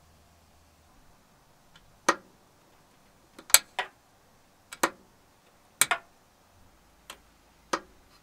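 Steel hood prop rod snapping into and out of a new 3D-printed plastic retaining clip: a series of sharp clicks, several in quick pairs, roughly one every second.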